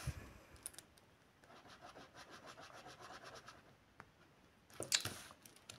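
Ballpoint pen scratching across a pad of sticky notes in quick, faint shading strokes, with a brief louder noise about five seconds in.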